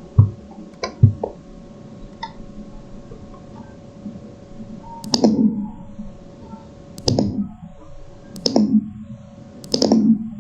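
Fireworks bursting: a few small pops in the first couple of seconds, then four loud bursts about a second and a half apart, each trailing off in a short echo.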